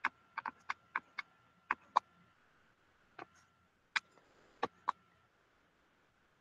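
About a dozen sharp, short, irregular clicks, bunched in the first two seconds and sparser after, from the pen or mouse being used to draw on a computer whiteboard.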